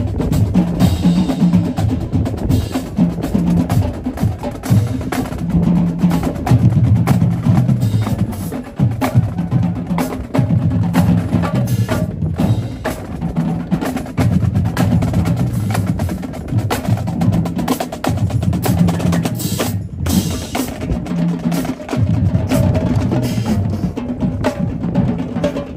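High school marching band drumline playing a cadence, with dense snare drum strokes over bass drums.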